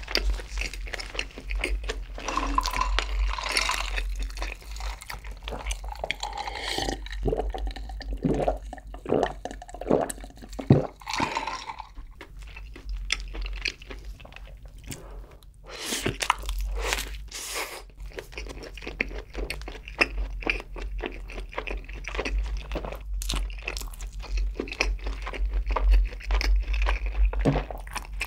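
Close-miked chewing and mouth sounds of a soft burger bun coated in melted cheese sauce being bitten and eaten, with many small wet clicks and smacks.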